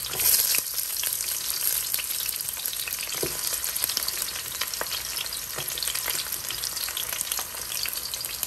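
Sliced onions dropped into hot oil in a stainless steel pot and frying. A loud sizzle bursts up as they hit the oil, then settles into a steady crackling sizzle with scattered pops.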